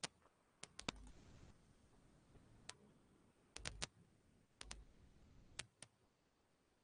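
Sharp, irregular clicks at a computer, coming singly and in quick clusters of two or three, over an otherwise quiet room.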